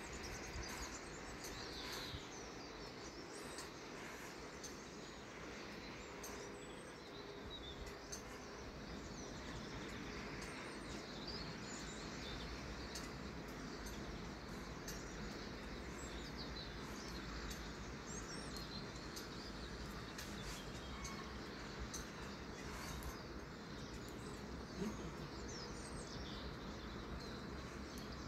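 Steady outdoor background noise with a low hum, and small birds chirping briefly here and there.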